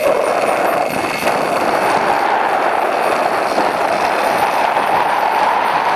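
Paramotor engine in flight, a steady, unbroken drone with a grainy buzz.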